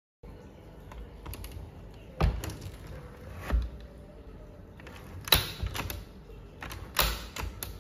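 Adjustable footrest's plastic panels and slotted steel height brackets clacking and clicking as the top panel is pressed down and pulled between its height notches. There are four sharp clacks, a second or more apart, with lighter clicks between them.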